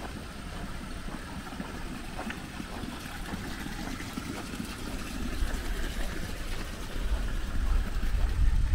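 Wind buffeting the microphone, a low rumble that gusts stronger near the end, over a faint steady high-pitched hum.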